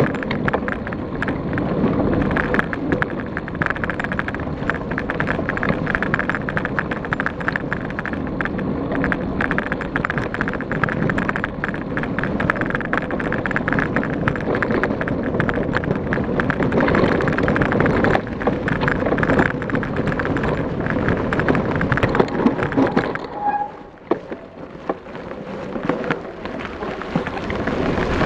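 Trek Elite 8.6 mountain bike ridden over a leaf-covered forest trail, heard from a camera on the bike: tyres rolling on dirt and leaves, constant rattling and knocking of the bike and camera mount, and wind on the microphone. It eases off for a couple of seconds near the end, then builds again.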